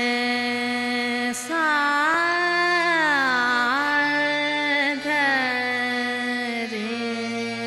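Indian classical-style music: a melody of held notes that slide and bend in pitch, over a steady drone.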